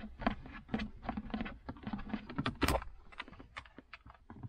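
Irregular plastic clicks, knocks and rattles as a Toyota Matrix centre-console armrest lid is worked loose and pulled off by hand, with one louder knock a little past halfway.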